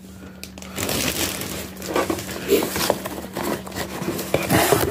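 A plastic poly mailer bag crinkling as a small cardboard box is pulled out and handled. A dense run of rustles and light knocks starts about a second in.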